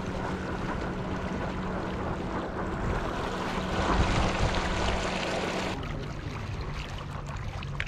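Home-built 9000-watt electric outboard running under power on a paddle board: a steady low hum over the rush of water along the hull. About six seconds in, the hum drops to a lower pitch and the water noise falls away as the board slows.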